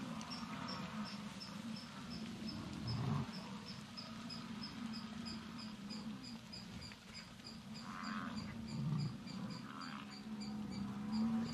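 American bison bulls fighting head to head: a low, wavering rumble with a couple of heavier low thumps. Over it runs steady insect chirping at about three chirps a second.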